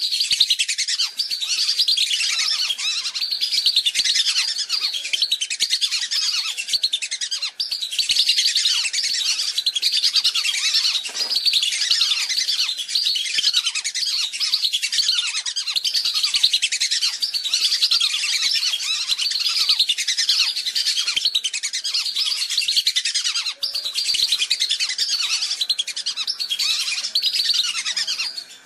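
Lure recording of a flock of whistling ducks (belibis) calling: many high, thin whistles overlapping in a dense, unbroken chorus. This is a bird-lure call played to draw wild whistling ducks in.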